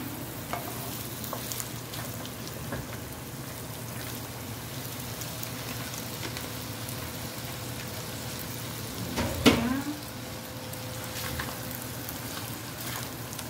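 Diced potatoes and chorizo sizzling steadily in a frying pan, with a slotted spatula scraping and clicking against the pan as the mix is stirred. A short vocal sound, the loudest moment, comes about nine seconds in.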